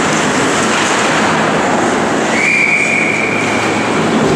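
Ice hockey play in a rink: a steady, loud scrape and hiss of skates on ice with arena echo. Just past two seconds in, a referee's whistle sounds one long blast of about a second, signalling a stoppage as the goalie covers the puck.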